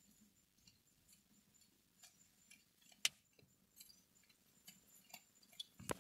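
Near silence: room tone, broken by one sharp click about three seconds in and a few faint ticks after it.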